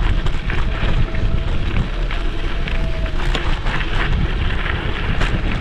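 Wind buffeting the microphone of a clamp-mounted GoPro on an electric scooter riding a dirt road, with frequent small knocks and rattles from the bumps.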